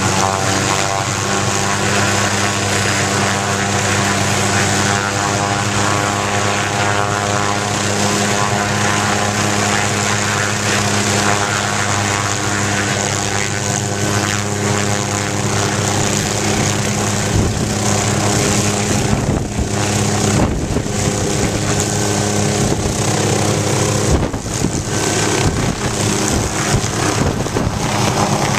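MD 500-series light helicopter running on the ground with its turbine engine and rotor turning: a steady mechanical hum and whine. From about halfway in, gusts of rotor wash buffet the microphone with uneven low rumbles.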